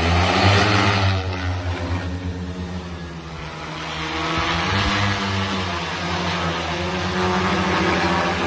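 Rotors of a 16-litre quadcopter agricultural sprayer drone humming loudly as it lifts off and climbs overhead, the pitch wavering up and down as the motors change speed. The hum dips about three seconds in and swells again about five seconds in.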